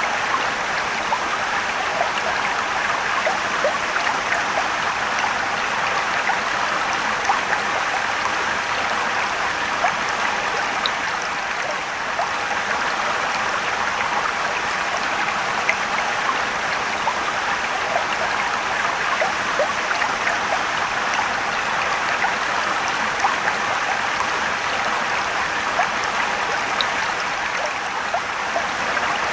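Mountain stream and small waterfall: steady rushing water with many small splashes and trickles.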